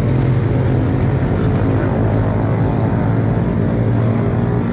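Motorcycle engine running at a steady pitch under a constant rushing noise, with no change in revs.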